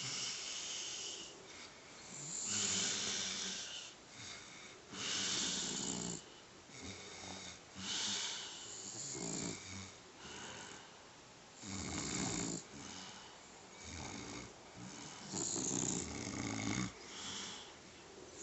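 A man and a 14-week-old pit bull puppy snoring in turn, with about nine snores in uneven succession, some deep and some mostly hissing.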